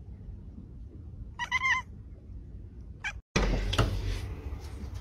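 A domestic cat meows once about a second and a half in, with a brief second call just before three seconds. Then the sound cuts abruptly to louder handling noise with a few knocks.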